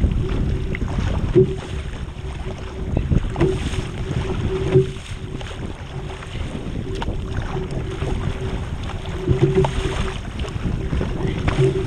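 Surf ski being paddled at sea: wind buffeting the microphone over water sloshing and splashing around the hull and paddle, with a few louder splashes along the way.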